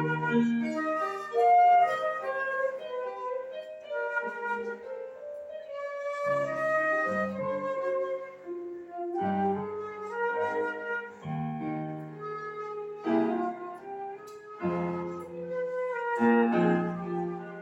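Flute playing a slow melody over piano chords that change every two to three seconds, in a self-taught player's rehearsal run-through.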